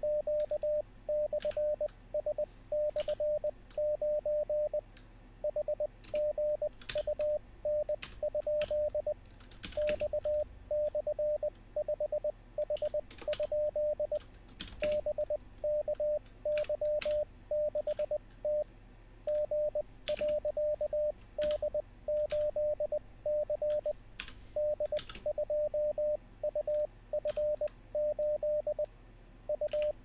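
Computer-generated Morse code practice tone at 600 Hz keying out random code groups, the characters sent at 20 words per minute but spaced out to an effective 13 words per minute (Farnsworth timing). Computer keyboard keys click now and then as the copied letters are typed in.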